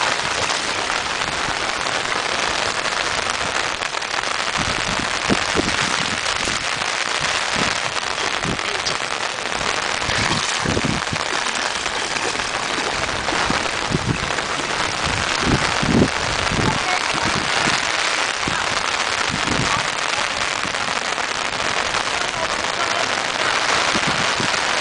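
Heavy rain falling steadily, a continuous hiss, with scattered low thumps in the middle stretch.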